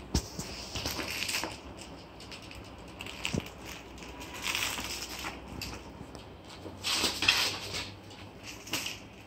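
Crinkling and rustling in irregular bursts as a cat plays with a fabric fish toy and cardboard boxes on a wooden floor, with a soft thump right at the start.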